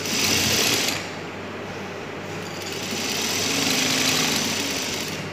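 Juki industrial sewing machine running in spurts as cloth is fed through, running a second row of stitching over the salwar's pleated waist to strengthen it. It runs fast for about the first second, slows, then speeds up again in the second half.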